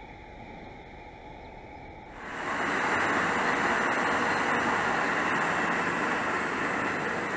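Steady outdoor hiss, then from about two seconds in a louder steady rush of rail noise with a faint steady hum, as an EH200 electric locomotive moves slowly along the tracks hauling a railway crane.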